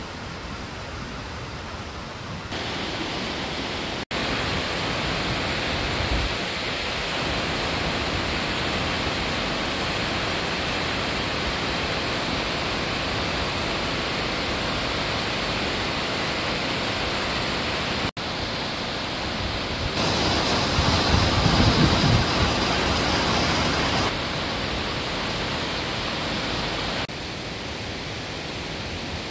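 Rushing water of a rain-swollen stream running high and fast, a steady wash of noise. The level shifts abruptly several times, and it is loudest and deepest for a few seconds about two-thirds of the way through.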